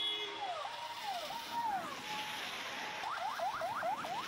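Police siren sounding over a steady background hiss. Slow falling-and-rising sweeps switch about three seconds in to a rapid run of rising sweeps, several a second.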